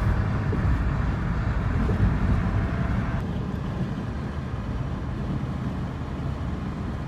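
Cabin noise inside a car cruising on a highway: a steady low rumble of road and engine noise. The upper hiss of the noise eases a little about three seconds in.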